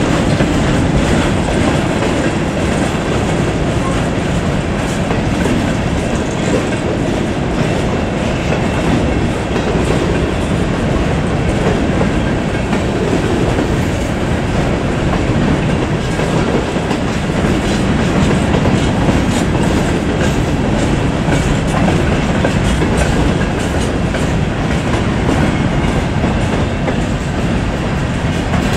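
Freight train of hooded steel-coil cars rolling past: a steady noise of steel wheels on rail, with repeated clicks as the wheels cross the rail joints.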